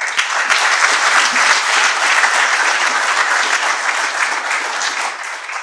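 Audience applauding in a room, starting all at once and dying away near the end.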